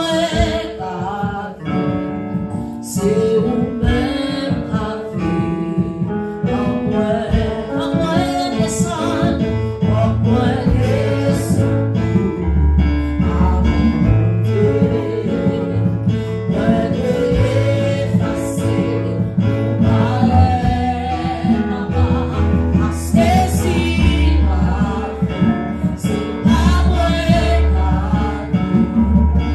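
Live gospel worship song in Haitian Creole: women's voices singing into microphones over a band accompaniment, with a low bass line coming in about ten seconds in.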